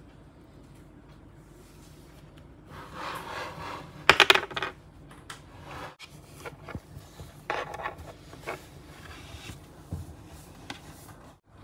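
Small hard objects clicking and clattering against a hard tabletop as a plastic toy figure and picture cards are handled and set down. There is a rapid burst of clinks about four seconds in and a second, softer cluster about seven and a half seconds in, with a few single taps between them.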